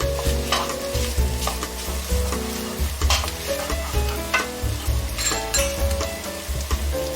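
Cucumber and egg stir-fry sizzling in a frying pan as it is stirred, with a few clinks of utensil on pan. Background music with a steady beat plays over it.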